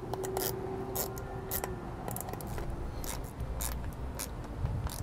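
Small socket ratchet clicking in short, uneven strokes as a nut is tightened down onto a terminal stud.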